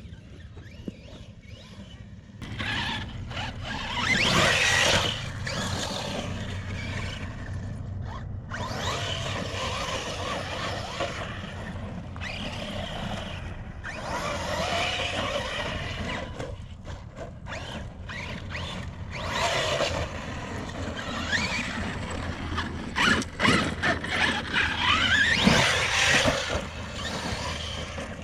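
Arrma Outcast 6S brushless electric RC truck driven hard: a motor whine that rises and falls in repeated bursts of throttle, over a rough scrabbling noise of tyres on dirt, starting about two seconds in.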